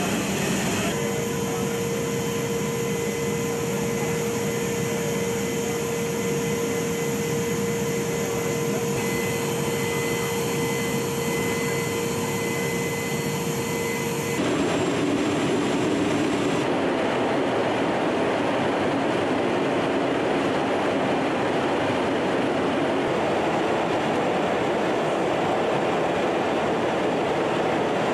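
Steady jet engine and air noise inside a C-17 transport's cargo hold, with a steady hum over it through the first half. About halfway it shifts to a fuller, slightly louder roar.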